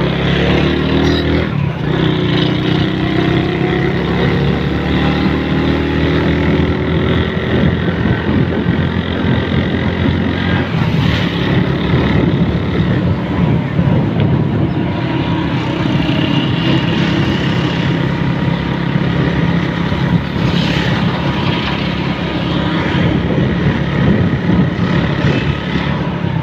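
Motor vehicle running along a road, heard from aboard: a steady engine hum with road and wind noise, its note sinking slowly in the first few seconds.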